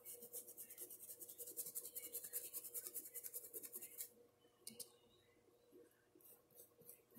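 Paintbrush working paint quickly over the surface of a cup: a fast, even run of short scratchy strokes for about four seconds, then a few scattered light taps.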